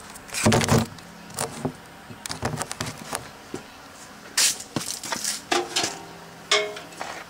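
Handling noise: scattered knocks, scrapes and rustles, loudest about half a second in and again around the middle, then a few more knocks near the end.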